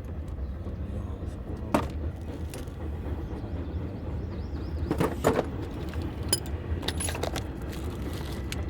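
Several sharp metallic clinks and knocks, the loudest pair about five seconds in, over a steady low rumble.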